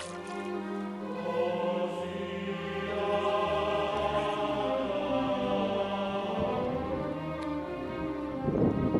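Background music with long sustained chords. A short burst of noise comes near the end.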